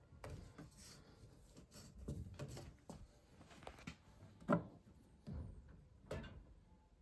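Scattered light knocks, clicks and rubbing from PVC condensate drain pipe and fittings being handled and dry-fitted, the sharpest knock about four and a half seconds in.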